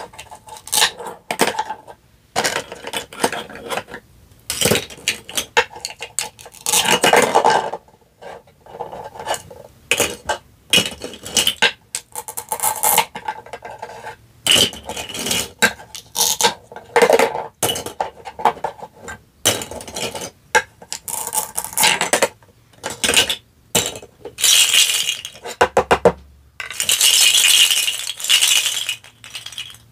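Plastic toy knife cutting apart toy fruit and vegetables on a wooden cutting board. Short rasping tears as the pieces come apart, with irregular clacks and clinks of the hard plastic pieces being set down and dropped into a plastic basket.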